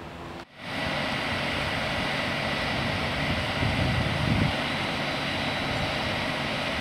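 Jet aircraft engine running steadily: a continuous whine over a broad rumble, starting abruptly about half a second in.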